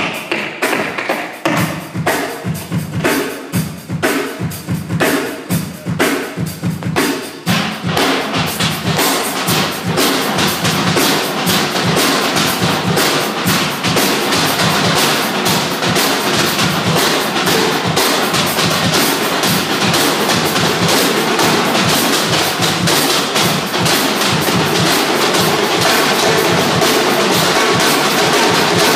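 Snare drum and other drums played live: spaced strokes in a rhythm at first, then from about eight seconds in fast, continuous drumming that stays dense and loud.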